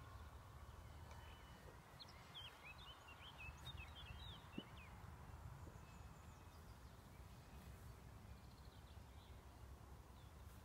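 Near silence in open country: a low wind rumble on the microphone, with a few small bird chirps about two to five seconds in.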